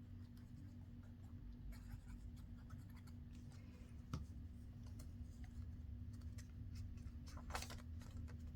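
Paper and cardstock being handled: soft scratchy rustles and small taps as tags and inserts are slid and set into paper pockets, with one sharper tap about four seconds in, over a faint steady hum.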